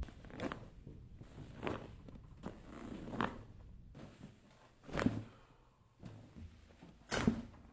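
Short knocks and pops from a chiropractic adjustment, about five of them spaced one to two seconds apart; the loudest two come about five and seven seconds in.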